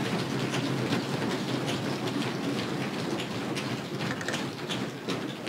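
Members of a legislative assembly applauding in a dense, steady patter of clapping that begins suddenly as the Chief Minister is called and thins out near the end.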